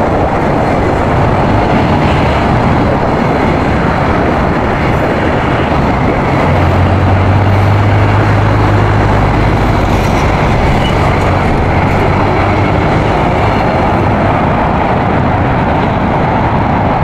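Double-deck passenger coaches of a train rolling past, a steady noise of wheels on rail, with a low hum in the middle of the passage.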